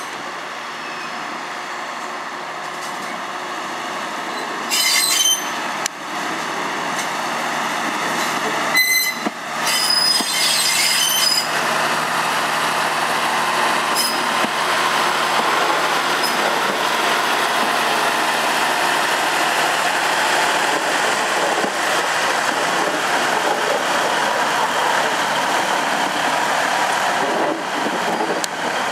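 Class 950 diesel test train 950001 approaching and running past, its noise building over the first dozen seconds and then staying loud and steady, with shrill squealing bursts about five seconds in and again around ten seconds in.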